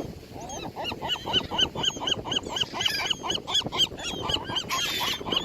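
A group of birds calling in a fast run of short, overlapping calls, each rising and falling in pitch: birds squabbling and fighting over food.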